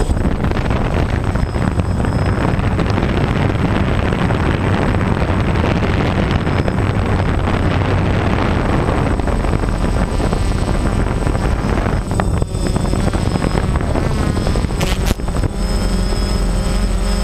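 Small electric quadcopter's motors and propellers running, heard from a camera mounted on the craft, with air rushing past. Near the end the pitch rises and falls as the motors change speed, and there are a couple of sharp knocks.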